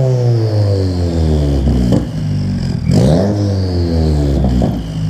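Subaru WRX's turbocharged flat-four through a catless J-pipe and Greddy RS-Race catback exhaust, revs falling away after a rev, a quick throttle blip about three seconds in, then settling to a steady idle. A few crackles come as the revs drop.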